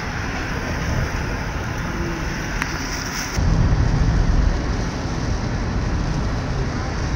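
Wind buffeting the microphone, a steady low rumble with a stronger gust about three and a half seconds in.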